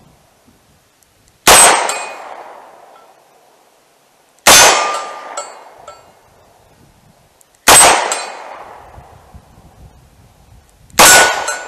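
Four shots from a 2-inch-barrel Taurus 856 .38 Special revolver fired double action, about three seconds apart. Each is a sharp crack with a long fading echo and a faint metallic ring from the hanging steel targets.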